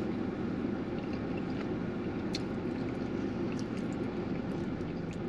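Steady low rumble of city background noise, with a few faint clicks scattered through it.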